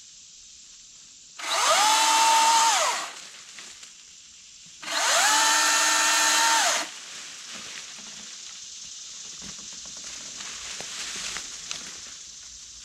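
Milwaukee M18 Fuel 14-inch top-handle battery chainsaw triggered twice: each time the brushless electric motor whines up in pitch, holds steady for one and a half to two seconds, and winds back down, with a short pause between the two runs.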